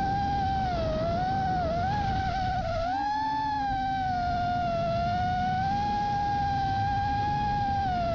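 FPV quadcopter's electric motors and propellers whining in flight, one steady pitch with overtones that dips and rises a little as the throttle changes, over a low rush of wind and prop wash.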